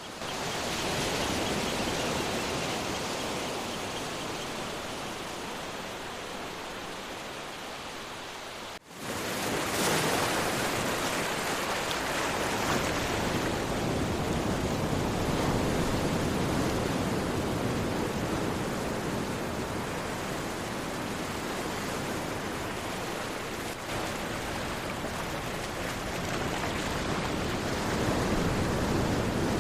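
Sea waves washing on a shore: a continuous rush of surf that swells and eases. About nine seconds in, the sound drops out for a moment and surges back.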